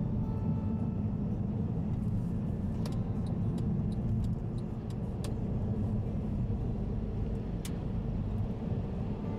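A car driving on an expressway: a steady low rumble of tyres and engine, with a few faint sharp clicks scattered through it.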